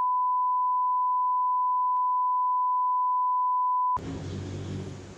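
An electronic test tone: one pure, unwavering beep held at a single pitch, which cuts off suddenly about four seconds in and gives way to low room noise.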